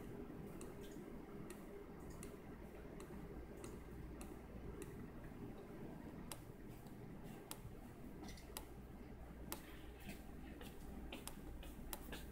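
Faint, irregular small clicks and ticks, more frequent in the second half, over a low steady hum. They come from hand adjustment of a breadboard circuit that drives a DC auto-iris CCTV lens open and closed.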